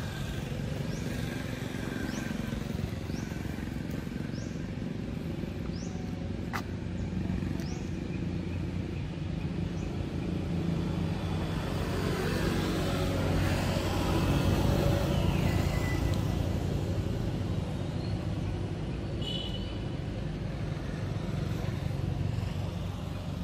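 Steady low rumble of a motor vehicle engine, swelling as a vehicle passes about fourteen seconds in. Short high rising chirps come in the first several seconds.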